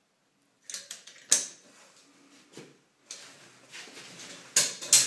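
Caulking gun being handled and put aside: a handful of sharp clicks and knocks, the loudest about a second in and two close together near the end, with faint rustling between them.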